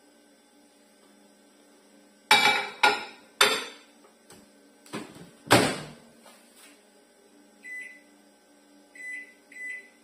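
Philco microwave oven being loaded: a series of clunks and knocks from the door and the glass dish going in, the loudest about five and a half seconds in as the door is shut, followed by three short keypad beeps as the one-minute cooking time is entered.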